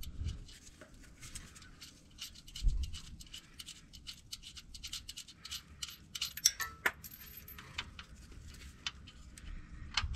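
Light metallic clicks and ticks of a nut and small hardware being handled as the nut is threaded by hand onto a bolt on a newly installed starter, with a dull low thump about two and a half seconds in.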